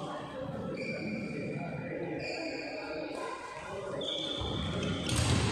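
Doubles badminton play on a synthetic court: players' shoes thudding and squeaking as they move, with a loud thump about five seconds in, among voices in a large hall.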